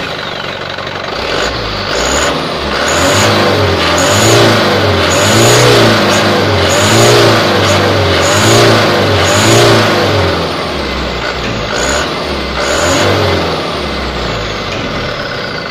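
Mitsubishi Canter turbo-diesel engine blipped up and down about nine times in quick succession, a high turbo whistle rising at the peak of each rev over the diesel rumble, with the exhaust-brake flap set partly closed to make the turbo louder.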